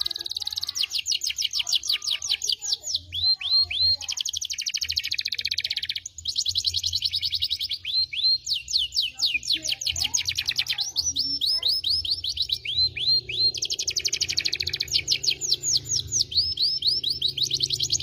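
Domestic canary singing without pause: long, very fast rolls alternate with runs of quick down-slurred notes, several a second.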